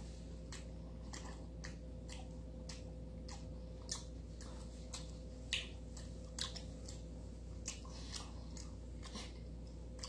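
A person chewing a mouthful of raw chicken breast with the mouth closed: soft, irregular wet chewing clicks, roughly one or two a second, over a faint steady hum.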